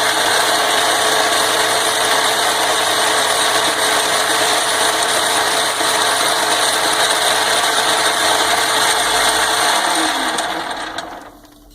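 Vintage Atlas lathe running under its single-phase motor through a light turning pass on an out-of-round, probably bent workpiece: a loud, steady machine whir with a faint rattle. It winds down and fades out near the end.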